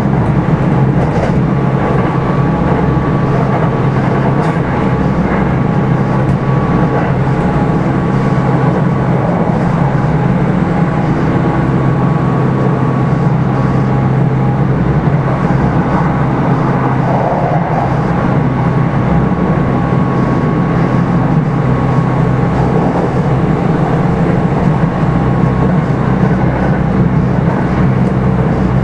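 Kintetsu 5211-series electric train running at steady speed between stations, heard inside motor car Mo 5261: a continuous, even rumble of motors and wheels on the rails with a faint steady whine above it.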